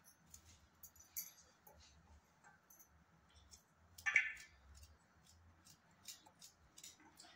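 Faint clicks and scrapes of a small knife cutting carrots into pieces held in the hand over a steel bowl, with one louder knock about four seconds in.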